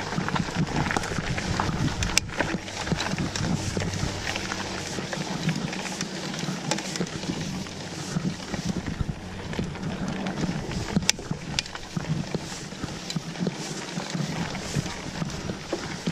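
Mountain bike riding over a dirt forest trail: tyre noise with constant, irregular rattling and knocking of the bike over the rough ground, and two sharper knocks, about two seconds in and about eleven seconds in.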